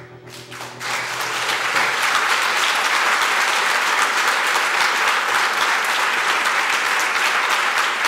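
Audience applauding, breaking out just under a second in as the last ringing notes of music die away, then holding steady.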